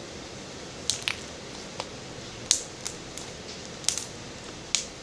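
Slime being pressed and played with, giving off about seven small sharp pops and crackles at irregular intervals.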